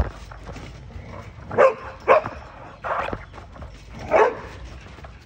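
Pet dog barking in four short barks about a second apart, with a sharp click at the very start.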